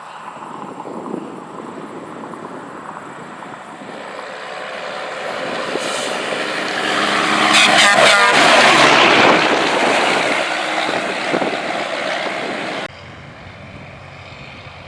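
Combine harvester working in standing corn passes close by, getting steadily louder to a peak about halfway through and then fading. Near the loudest point there is a short rattling clatter. About 13 s in the sound drops abruptly to a quieter, steady machine sound.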